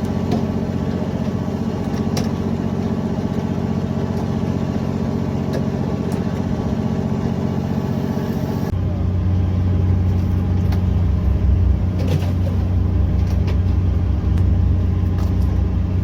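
Fishing boat's engine running with a steady drone. About nine seconds in, it changes abruptly to a deeper, louder drone.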